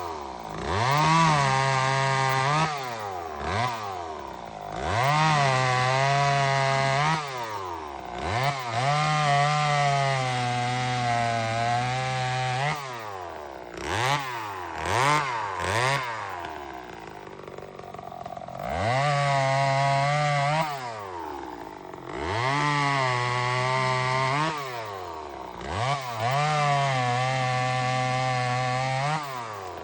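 Remington Weekender 34cc two-stroke chainsaw revved again and again: the engine climbs from idle to a high, held whine for a couple of seconds, then drops back to idle. About six long revs are broken by a few short throttle blips in the middle.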